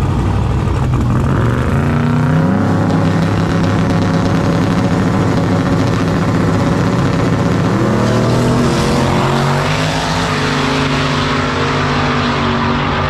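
Drag race car's engine running loud and rough at the starting line, revving up about two seconds in, then launching hard around eight seconds in, with the engine note climbing as the car runs down the track.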